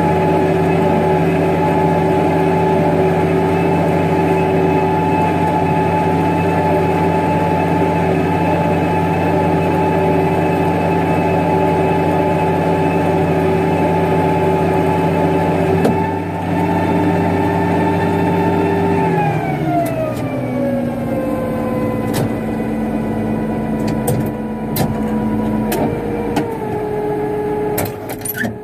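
International 3588 2+2 tractor's diesel engine running steadily while pulling a disc through corn stubble, then slowing smoothly to a lower speed about two-thirds of the way through. A few sharp clicks near the end.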